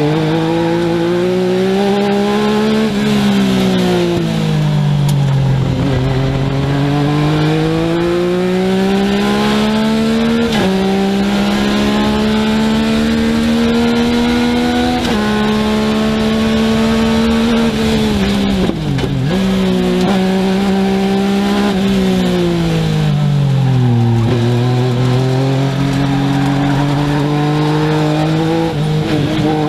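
Legend car's motorcycle-derived four-cylinder engine under hard driving, heard from inside the cockpit: the revs climb for several seconds, then fall as the driver lifts for corners, over and over, with a few sudden drops in pitch.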